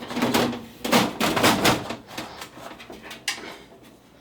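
A computer case being worked apart: several scraping, sliding bursts of metal and plastic parts in the first two seconds, then a single sharp click about three seconds in.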